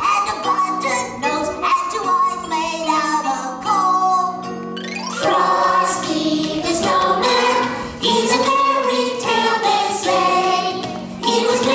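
Voices singing over backing music, as in a live holiday stage show.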